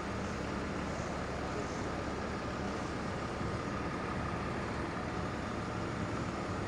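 Heavy machinery running steadily, a continuous mechanical drone with a faint steady whine.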